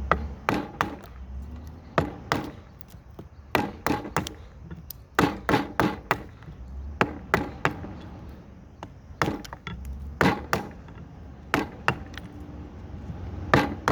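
Hatchet chopping into a cedar block: a long run of sharp wooden strikes, irregularly spaced and often coming in quick clusters of two or three.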